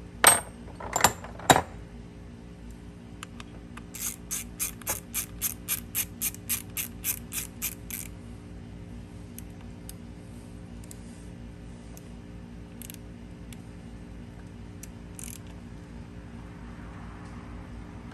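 Socket ratchet wrench clicking as a fastener is turned on an outboard motor's starter assembly. A few loud sharp clicks come first, then a steady run of clicks at about four to five a second for some four seconds, then a few scattered faint clicks.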